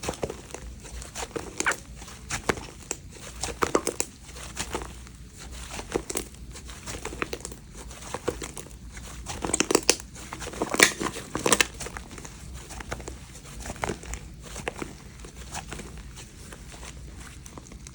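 Slime being squished and pressed by hand, making irregular crackles and small pops, with a denser cluster about ten seconds in.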